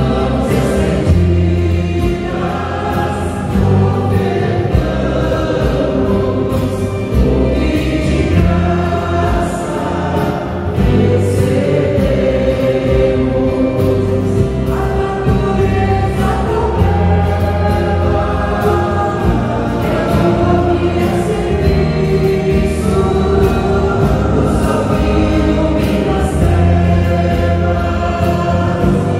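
A small church music group singing a Catholic Mass hymn in Portuguese, led by women's voices, over a Nord Electro stage keyboard, acoustic guitar and electric bass.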